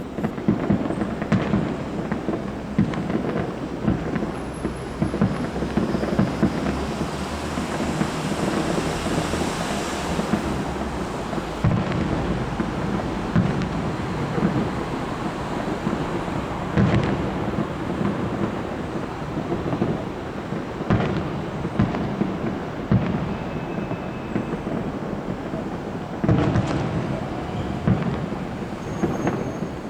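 Fireworks going off in a dense, continuous barrage: overlapping booms with crackling and many sharp reports, a few louder bangs standing out.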